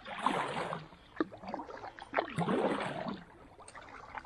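Kayak paddle strokes: the blades dipping and pulling through the water in swishing washes about a second apart, with a couple of light knocks, easing off in the last second.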